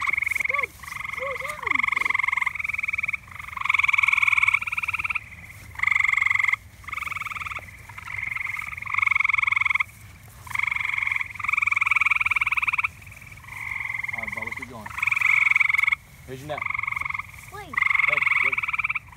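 A chorus of frogs calling: trilled calls about a second long, following one another almost without a break.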